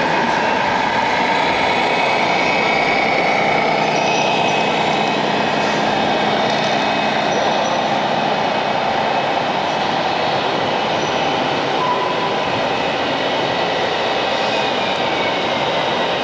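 Steady mechanical running noise of RC model trucks and construction machines, with a faint high whine coming and going.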